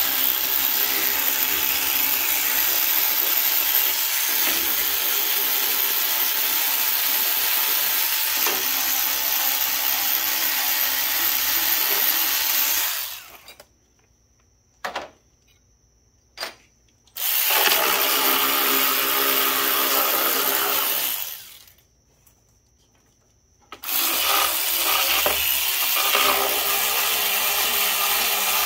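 A power driver running out the 10 mm bolts of a mower engine's blower housing: a steady whir for about thirteen seconds, a pause with a couple of small clicks, then two more runs of a few seconds each.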